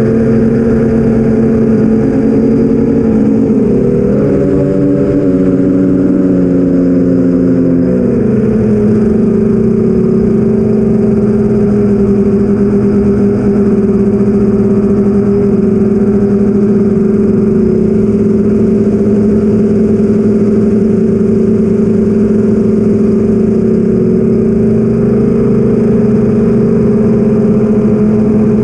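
Brushless motors of an 8-inch FPV quadcopter spinning 8-inch props: a loud, steady buzzing whine. Its pitch rises for a few seconds about four seconds in as the throttle goes up, then settles back to a steady cruise.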